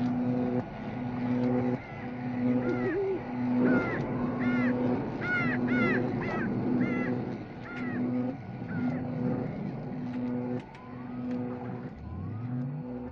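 Eerie sound-effects soundtrack: a low hum pulsing on and off about once a second, with a flurry of short, high chirping calls through the middle and low rising sweeps near the end.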